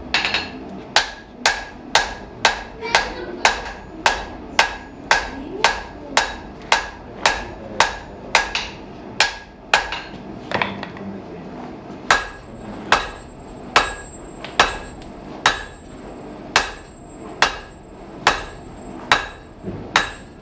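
Blacksmith's hammer striking hot round iron on an anvil in a steady rhythm, about two ringing blows a second, as the bar is drawn out into a long nail. About halfway through, the blows take on a higher, sharper ring.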